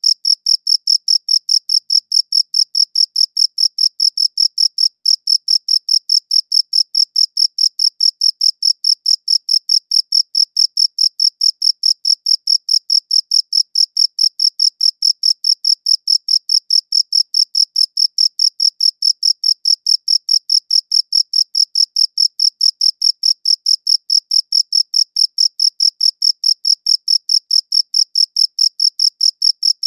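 A cricket chirping steadily: an even, high-pitched pulse repeated several times a second, with one brief break about five seconds in.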